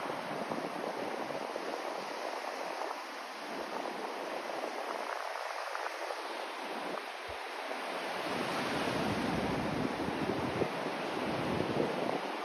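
Steady rushing white noise with no tones in it, growing a little louder in the second half.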